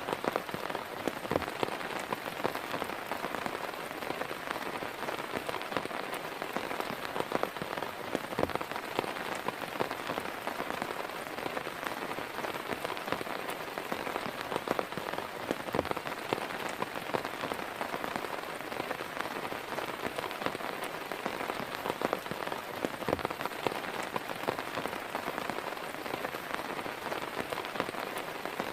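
Heavy rain falling steadily, with many separate drops striking sharply and close.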